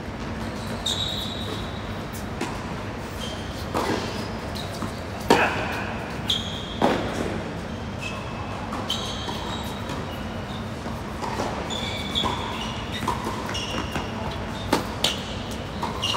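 Tennis ball struck by racquets and bouncing on a hard court during doubles rallies: a handful of sharp pops a second or so apart. Short high squeaks of shoes on the court come in between, over steady background noise.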